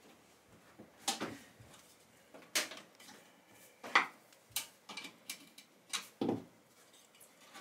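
Hard metallic clinks and clacks of a screwdriver and screws against the steel case of a desktop PC as parts are unscrewed for removal: about seven sharp knocks, roughly a second apart, with a duller thump about six seconds in.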